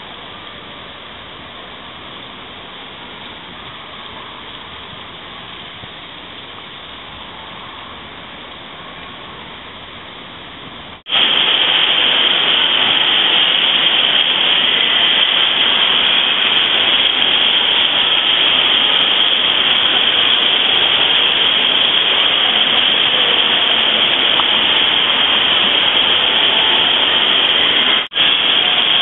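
Steady rushing hiss of spraying and running water from splash-pad water jets. Moderate at first, it jumps to a much louder, close hiss about eleven seconds in, with a brief dropout near the end.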